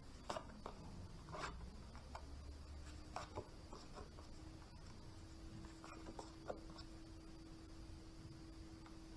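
Tarot cards being handled on a table: faint scattered rustles, slides and light taps, over a low steady hum.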